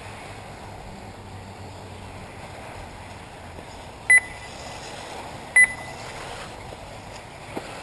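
Two short, loud electronic beeps about a second and a half apart, over a steady background hiss at an RC buggy race; the beeps are typical of a lap-counting system registering cars crossing the timing line.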